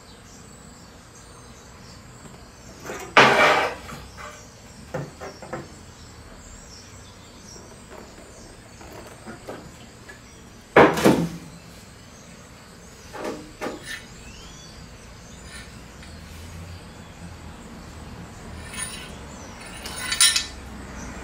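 Workshop handling noises: two loud clunks of a metal acetone can and hydraulic hose knocking on a steel welding table, about 3 and 11 seconds in, with a few lighter clicks between. Near the end, acetone runs out of the hose end into a plastic drain pan with a brief splashing hiss.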